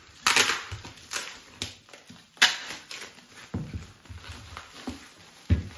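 Plastic packaging rustling and crinkling in irregular bursts as it is torn open by hand, with a dull thump near the end.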